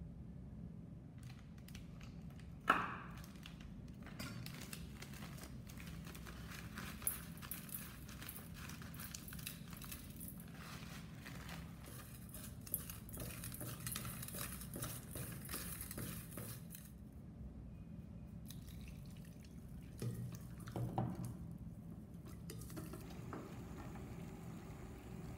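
Hands working raw shrimp: a sharp knock about three seconds in, then a long stretch of crackly rustling and wet rubbing of shrimp in a bowl. Near the end a pot of salted water is boiling.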